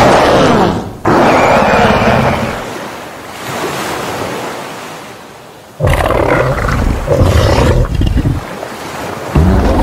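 Custom-made kaiju monster roar sound effect: loud roars with a wavering, bending pitch and a rough noisy body, the first fading into a low rumbling tail. A second roar starts about six seconds in, and another begins near the end.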